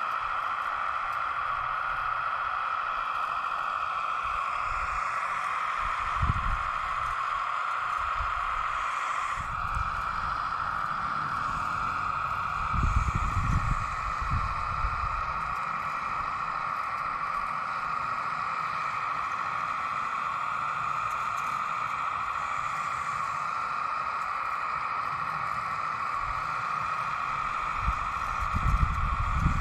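Hydraulic pump of a radio-controlled Kubota U17 model mini excavator running with a steady high whine while the boom and arm move, the whine shifting slightly about a third of the way in. A few short low rumbles come and go.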